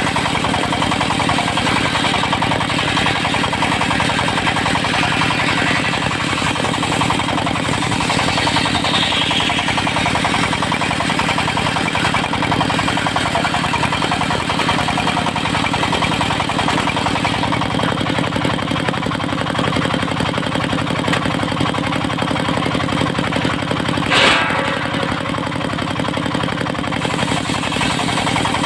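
Diesel engine driving a circular-saw mill (serkel), running steadily while the disc blade saws mahogany boards. One sharp crack comes late on.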